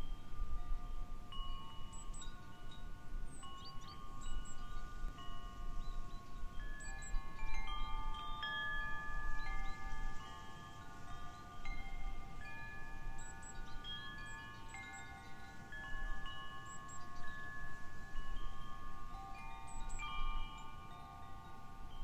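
Wind chimes ringing, several different tones struck at irregular moments and left to ring on, over a low rumble of wind.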